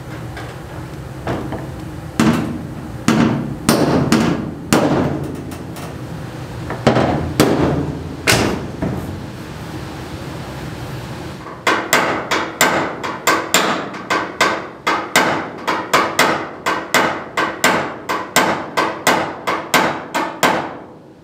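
Body hammer striking a car's sheet-metal fender panel to shape it. It starts with a handful of scattered blows, then from about halfway settles into a fast, even run of about three blows a second.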